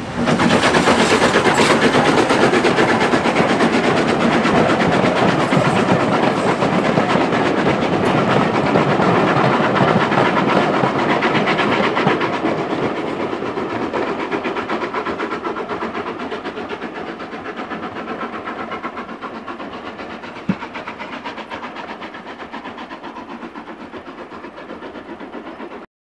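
Heritage railway passenger train passing close by, its wheels clattering rapidly over the rail joints. The clatter sets in suddenly, then fades slowly as the carriages move away, with one sharp click near the end.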